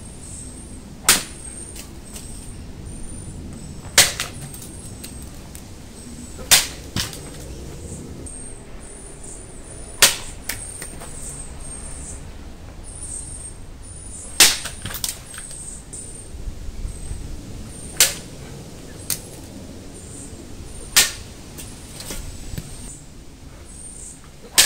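Katana blade cutting through dry bamboo stalks: a series of sharp cracks, eight loud ones a few seconds apart, some followed closely by a smaller crack. The bamboo is dried out and some is yellowing, which makes it very hard to cut.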